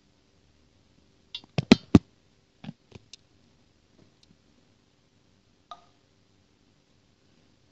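Scattered sharp knocks and clicks from handling: a cluster of loud knocks about one and a half to two seconds in, a few fainter clicks around three seconds, and a single knock with a brief ring near six seconds, over a faint steady hum.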